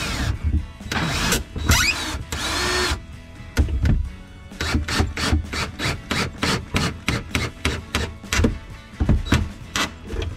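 DeWalt cordless drill-driver running in short spurts during the first three seconds, its motor whine rising and falling as it drives a screw up into the underside of the countertop. After that, background music with a steady beat carries on.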